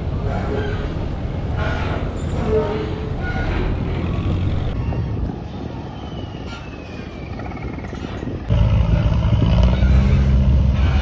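Boat engines rumbling on the river, with faint voices in the first few seconds. About eight seconds in, a louder, deeper diesel rumble takes over as a tourist boat approaches the pier.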